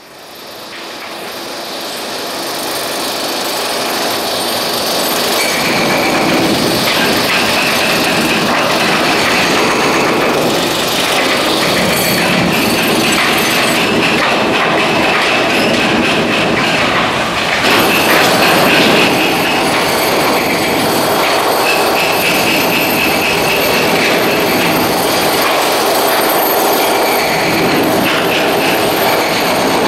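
Heavy demolition machinery breaking up a concrete bridge deck: a dense, steady clatter and rumble with high-pitched metallic squealing that comes and goes. It fades in over the first few seconds, then holds level.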